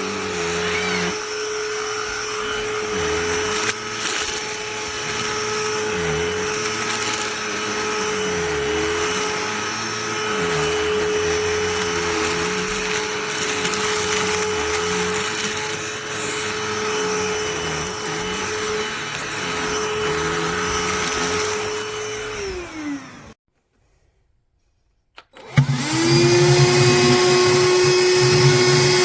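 Cordless handheld vacuum running steadily, then switched off about 23 seconds in, its motor tone falling as it winds down. After about two seconds of silence it is switched on again and runs up to speed.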